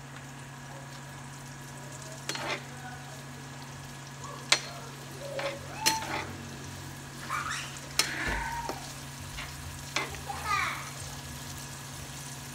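Vegetables sizzling in a nonstick frying pan as they are stirred with a metal spoon, with several sharp clicks where the spoon strikes the pan.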